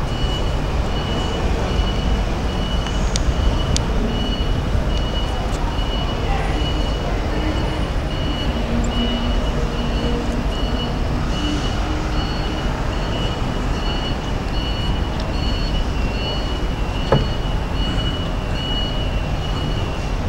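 Steady low machinery rumble with a high electronic beep repeating a little faster than once a second, like a vehicle's reversing alarm.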